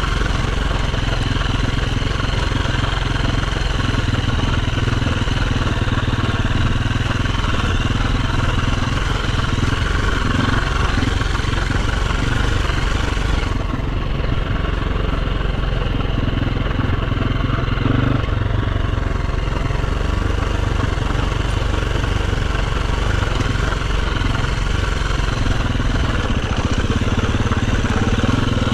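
Dirt bike engine running steadily off-road, with little rise or fall in pitch. The higher hiss dims for a few seconds about halfway through.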